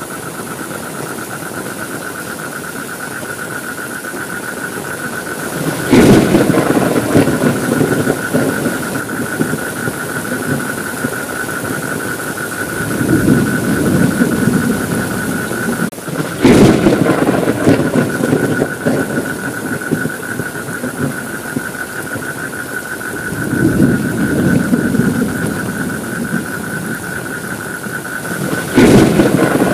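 Steady rain with rolling thunder: three sudden cracks, about six seconds in, about sixteen seconds in and near the end, each followed by a loud rumble, with two softer rolls of thunder between them. A steady high-pitched whine runs underneath throughout.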